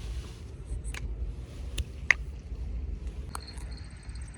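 A steady low rumble of wind and sea with a few sharp clicks, the loudest just after two seconds in; a faint high steady whine comes in near the end.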